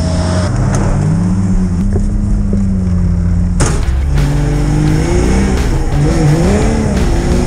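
Nissan Patrol Y60's engine revving as it crawls along a muddy forest track, its pitch rising about a second in. After an abrupt cut about three and a half seconds in, it is heard from inside the cab, the revs rising and falling.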